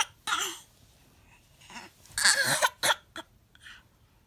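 A small child giving short, put-on coughs: one near the start, then two more in quick succession a little after two seconds in.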